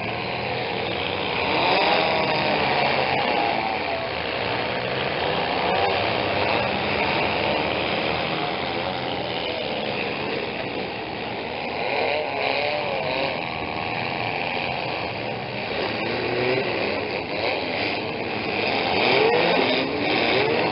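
Engines of several mini demolition-derby cars running and revving over and over, their pitch rising and falling as the cars push into each other, with a few sharp knocks of car bodies colliding.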